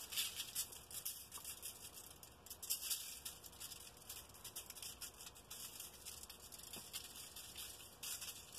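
A shaker can of Creole seasoning shaken over raw chicken drumsticks, the granules making a faint, quick, irregular dry rattle that comes and goes.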